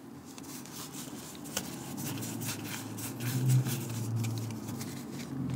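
Pokémon trading cards being handled and slid one behind another, a run of soft irregular card-on-card clicks and rustles, over a faint low hum.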